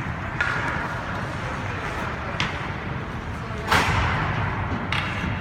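Hockey game play: four sharp knocks and clacks, the loudest a ringing crack about two-thirds of the way in, over steady rink noise with faint distant voices.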